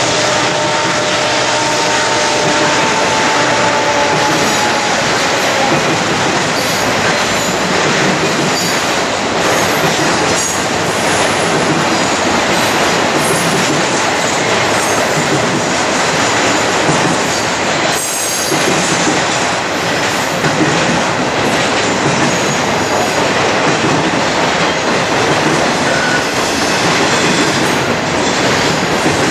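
Norfolk Southern intermodal freight train rolling past at close range: a loud, steady rush of steel wheels on rail with clattering from the cars and occasional short, high-pitched wheel squeaks. A humming tone from the departing locomotives fades out over the first few seconds.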